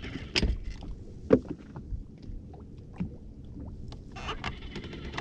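Low, steady rumble of wind and water around a small fishing boat, with a few sharp knocks and scattered light taps on the boat, three of them standing out.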